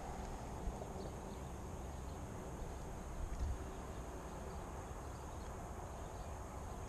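Steady riding noise from a road bike on wet tarmac: wind rumbling on the camera microphone over the hiss of tyres on the wet road.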